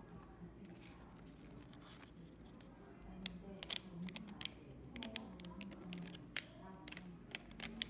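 Plastic single-serving mixed-nut pouch being crinkled and torn open by hand, with a run of sharp crackles starting about three seconds in.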